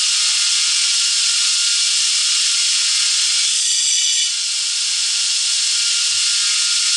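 A 2" x 27" belt grinder running its abrasive belt in reverse with no work on it: a steady, loud hiss of the belt over the wheels with a faint motor whine. About halfway through, the sound shifts briefly and then settles a little quieter.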